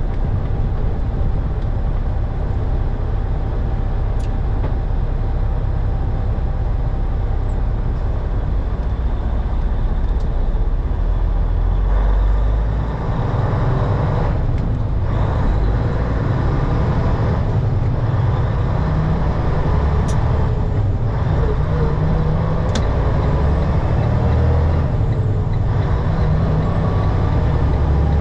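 Semi truck's diesel engine and road noise heard from inside the cab while driving, a steady low rumble that dips briefly several times as the gears are shifted.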